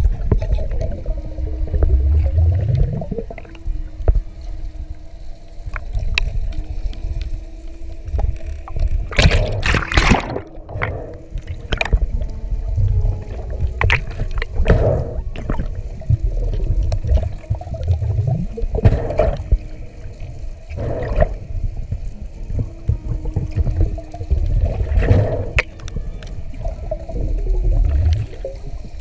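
Water moving against an underwater camera: a constant low rumble with several brief, louder gurgling swishes.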